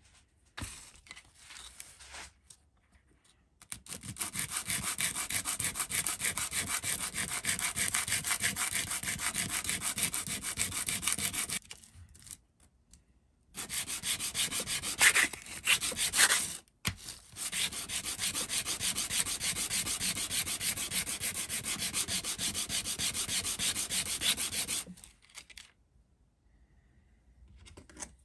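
A bone guitar-nut blank rubbed back and forth on a sheet of sandpaper in quick, steady strokes. It comes in two long runs with a pause between them. The 5 mm blank is being sanded down toward the roughly 3 mm thickness of a Fender-style nut.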